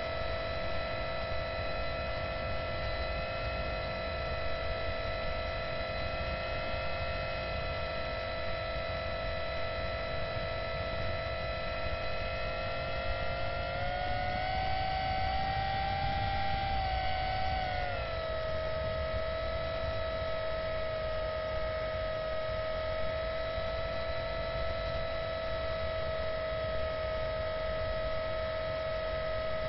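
Electric motor and propeller of an RC airplane whining steadily over a low rushing noise. About halfway through the pitch rises under more throttle, holds for a few seconds, then drops back to the cruise tone.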